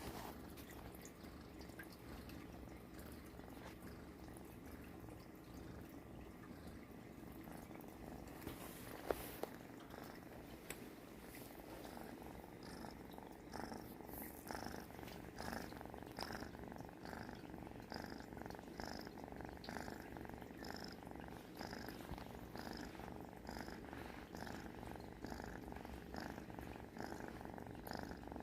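A domestic cat purring softly and steadily, with a snore-like rasp. The purr pulses in a rhythm that becomes clearer about twelve seconds in, and there is a single sharp click about nine seconds in.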